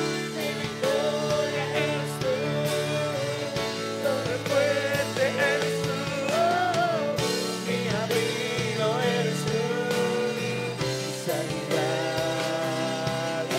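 Christian worship music: a singer's voice over long held chords, playing throughout.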